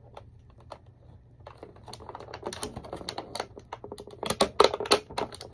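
Clear plastic bag crinkling and crackling as it is handled and pulled open: a few scattered crackles at first, growing denser and louder from about halfway through.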